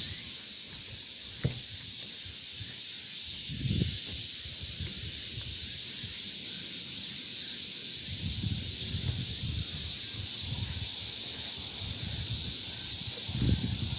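A steady, high-pitched hiss of summer insects, such as cicadas or crickets, in chorus. Low wind rumbles on the microphone come and go, about four seconds in, around eight to ten seconds, and near the end.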